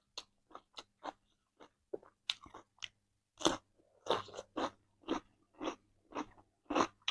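Close-miked chewing and crunching of chicken: a run of crisp crunches, sparse at first and then about two a second and louder from about three seconds in.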